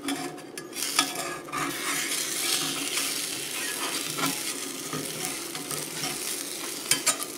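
Beaten eggs sizzling on low heat in a small cast iron skillet, while a slotted spatula scrapes under the egg's edge and clicks against the pan a few times, with a sharper pair of clicks near the end.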